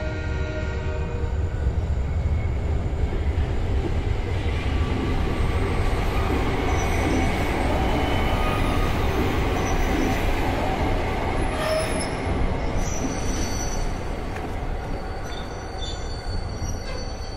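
Heavy, loud low rumble with a noisy rush that swells over the first few seconds and fades near the end, with thin high squealing tones over it in the second half. A held pitched tone dies away in the first second.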